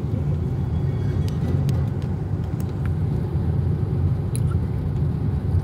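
Steady low rumble of a car driving along, heard from inside the cabin, with a few faint clicks and ticks.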